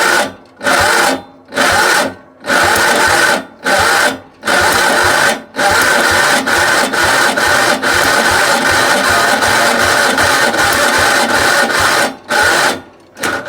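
John Deere 112 garden tractor engine being cranked over by its starter in a cold start and not catching. It goes in several short bursts of cranking, then one long crank of about six seconds, then a last short one. Too cold to fire.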